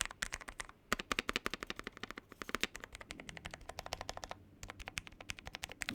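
Fast typing on an Akko Air 01 low-profile mechanical keyboard: a quick, fairly quiet clatter of keystrokes on its lubed Akko low-profile switches, pausing briefly twice.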